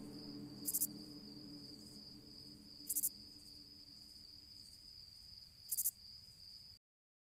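Faint insect chirping: a steady high-pitched trill with a sharper chirp about every two and a half seconds, over the fading tail of the music. The sound cuts off about a second before the end.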